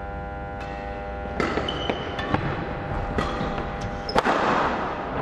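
Badminton rally: about five sharp racket strikes on the shuttlecock, roughly half a second to a second apart, with a couple of short shoe squeaks and a scuff on the wooden court floor as a player lunges near the end, over a steady hum.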